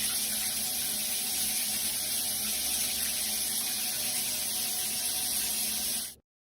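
Steady rush of running water, like a tap running, which cuts off abruptly about six seconds in.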